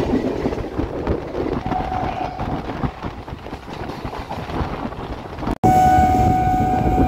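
MMTS suburban electric train running on the track, a steady rumble. Just over five seconds in the sound drops out for an instant and comes back louder, with a steady high tone in several pitches over the rumble.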